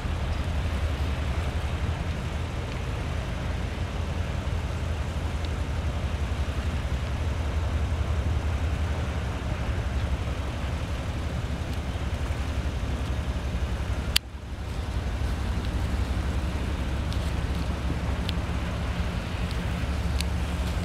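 Low, steady drone of a large car ferry's engines as the ship comes in through fog. One sharp click about 14 seconds in, after which the drone dips briefly and returns.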